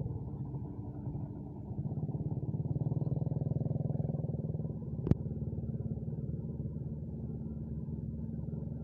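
Kobelco hydraulic excavator's diesel engine running under load as the arm works, louder from about two seconds in, with one sharp knock about five seconds in.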